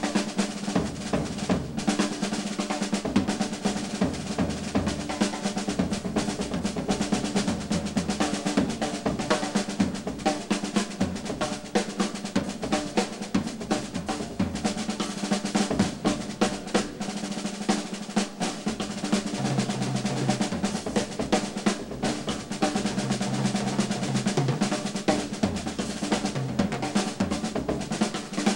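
Solo drum kit, a silver-sparkle Slingerland set, played at high speed: a dense, unbroken stream of snare drum rolls and stick strokes around the kit, with lower drum notes sounding in two short stretches in the second half.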